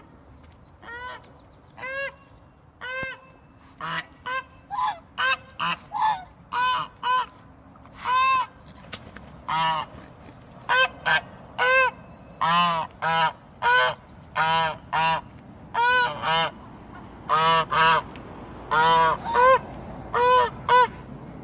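A goose honking over and over in short calls. The calls are spaced out at first, then come faster and louder from about four seconds in.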